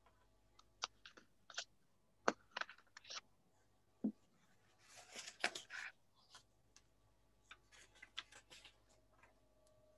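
Faint scattered clicks and taps from someone at a desk, with a short rustle about five seconds in, while figures are being looked up.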